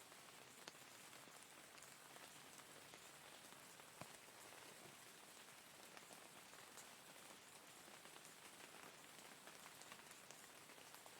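Faint, steady rain hiss with individual drops ticking now and then.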